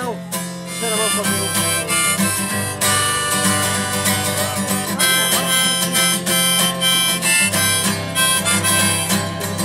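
Harmonica in a neck rack playing sustained chords over a strummed acoustic guitar, one player on both at once. The harmonica swells in about a second in.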